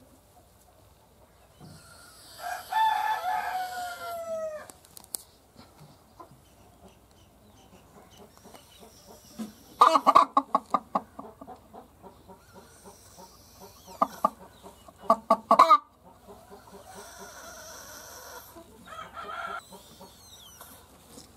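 Chickens calling: a long drawn-out call falling in pitch a few seconds in, then two loud runs of rapid clucks around the middle, and a shorter call near the end.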